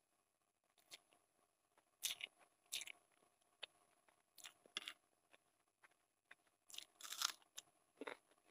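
Close-miked chewing of a mouthful of Maggi instant noodles, in irregular short bursts, the loudest about seven seconds in.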